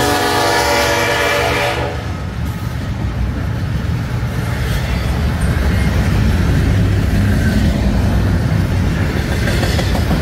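CP 8706's Nathan K5HLB five-chime air horn sounding a chord that cuts off just under two seconds in, then the steady rumble and wheel clatter of a freight train passing with double-stack container cars.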